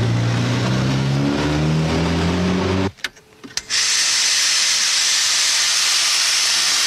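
A car engine running and rising slightly in pitch, cut off abruptly about three seconds in. After a brief near silence with a couple of clicks, a loud steady hiss of compressed air from a semi-truck's air system starts as the semitrailer is uncoupled.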